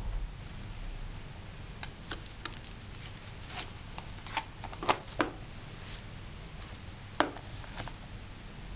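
Plastic CD jewel case being handled: a disc pressed onto the hub and the case snapped shut, making a string of sharp plastic clicks and snaps. The loudest snaps come about five seconds in and again a little after seven seconds.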